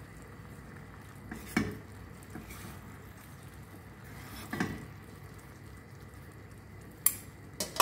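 Metal tongs and a spoon clinking against a stainless steel frying pan as chicken pieces are turned in thick, nearly reduced barbecue sauce, over a low steady simmering hiss. Single sharp clinks come about a second and a half in and again about four and a half seconds in, then two close together near the end.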